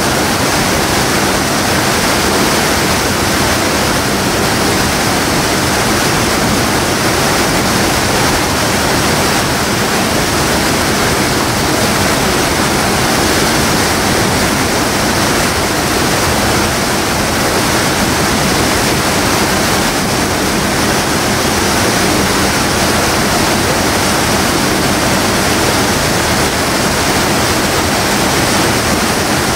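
Water pouring through a fish ladder's weir slot and crashing into churning whitewater below: a loud, steady rush.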